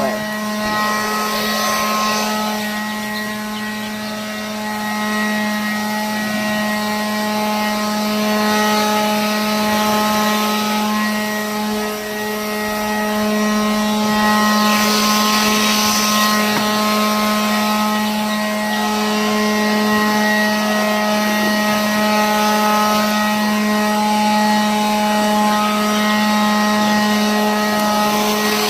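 Leaf blower running steadily at one constant pitch, its air rushing louder for a couple of seconds around the middle as the stream sweeps across surfaces.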